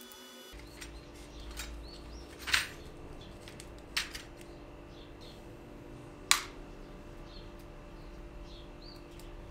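Three sharp metallic clicks, about 2.5, 4 and 6.3 seconds in, as brass reed organ reeds are worked loose from the reed cell block and handled, over a faint steady hum.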